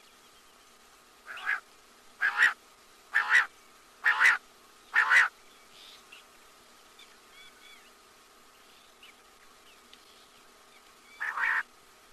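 Quail calling: five short, sharp calls at a steady pace of about one a second, a pause of several seconds, then one more call near the end. Faint chirping lies between the calls.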